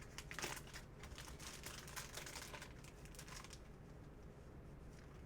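Faint crinkling and rustling of packaging being opened and handled by hand, with many small crackles that thin out after about three and a half seconds.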